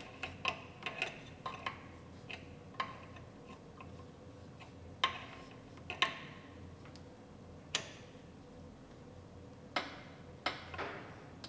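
Irregular metallic clicks and clinks of hand tools working the power steering line fittings. A quick run of light clicks comes first, then a few louder single clinks spaced a second or more apart.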